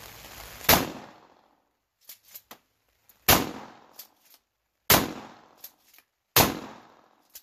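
Four 12-gauge pump-action shotgun shots, about one and a half to two and a half seconds apart, each dying away briefly. Between shots come the short clacks of the fore-end being racked to chamber the next shell.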